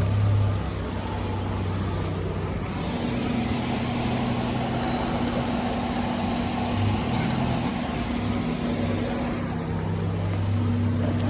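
Engine coolant pouring steadily out of a car radiator into a drain pan, over a steady low hum.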